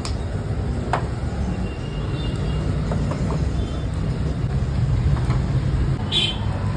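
Steady low background rumble with a few faint, short clicks over it.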